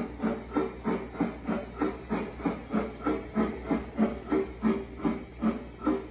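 Steam locomotive chuffing played by a RailPro sound module through the speaker of a G scale trailing battery car. It gives an even beat of about three chuffs a second.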